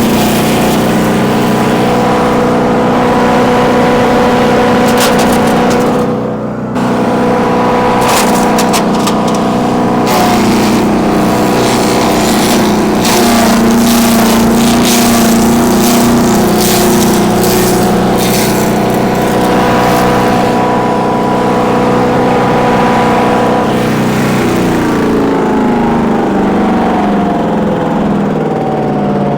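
Bilt Hard 224 cc gas-powered wood chipper running at speed while branches are fed in, with repeated sharp cracks and clatter as the wood is chipped. The cracks thin out later on, and near the end the engine note falls.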